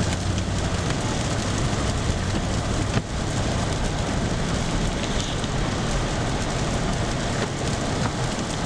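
Vehicle driving on a wet, slushy road: a steady hiss of tyres and spray over a low rumble.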